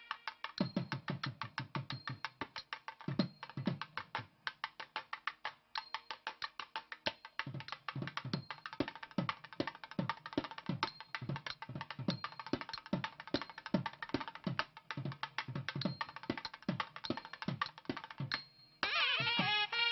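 Rapid drum percussion: quick sharp strokes over deep thudding bass strokes in a fast, busy rhythm. Just before the end, a melody with wavering, sliding pitch joins in.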